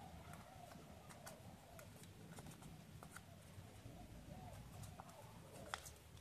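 Near silence with faint rustles and small clicks of a sheet of origami paper being handled, folded and creased by hand, the sharpest click near the end.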